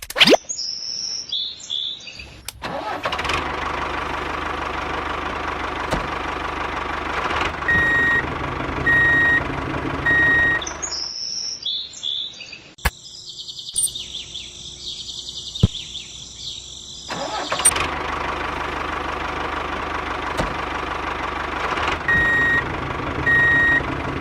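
A vehicle engine starts and runs steadily, with three short high beeps about a second apart. It starts up again about eleven seconds in, a loud high-pitched noise lasts about five seconds, then the engine runs on steadily with another three beeps near the end.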